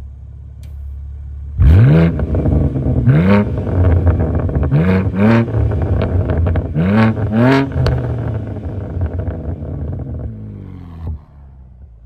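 BMW G87 M2's twin-turbo inline-six idling, then revved hard about six times in quick succession, mostly in pairs, through a Fi Exhaust valvetronic cat-back with the exhaust valves open. It then settles back to idle.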